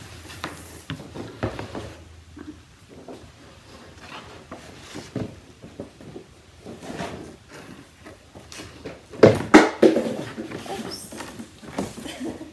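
A large sheet of brown paper being cut and handled on a table: scattered snips, taps and rustles, with a loud rustle of the sheet about nine seconds in.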